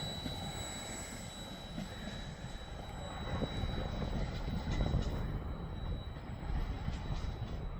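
TasRail freight train rumbling low and steadily as it rolls past and away, with a faint steady high-pitched whine that fades out near the end.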